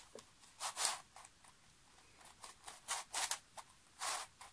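Plastic pieces of a large 3D-printed dodecahedral twisty puzzle rasping as its faces are turned by hand, about five short scraping turns.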